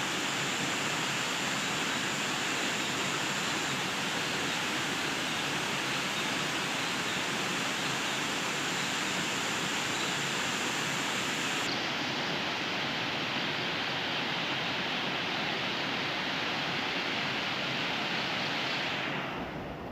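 Steady rushing of flowing stream water, an even hiss without rhythm that drops away just before the end.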